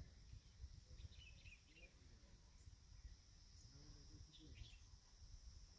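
Near silence: faint forest ambience, with a steady high insect drone, a few short bird chirps in two brief clusters, and a low rumble underneath.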